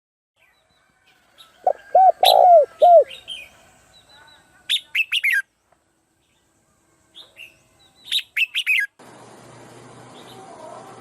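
Wild birds calling: four short, low, arched notes in quick succession, then two bursts of quick, high, falling chirps. Near the end the birds give way to a quiet, steady hiss of background ambience.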